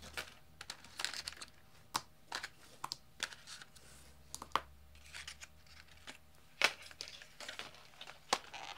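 Clear plastic blister packaging and a cardboard box being handled and pulled apart, crinkling and rustling with scattered short clicks, a few of them sharper.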